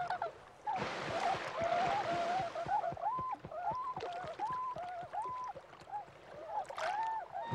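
A flock of tundra swans calling: many short, high hooting notes, overlapping and repeated. Splashing water comes in about a second in and fades by the middle.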